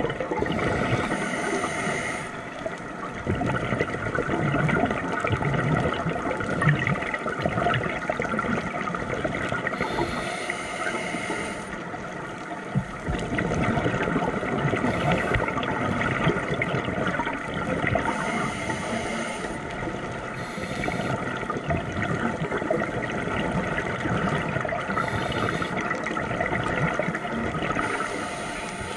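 Scuba diver's regulator breathing heard underwater: a hiss on each inhale every several seconds, and exhaled bubbles gurgling and rumbling in between.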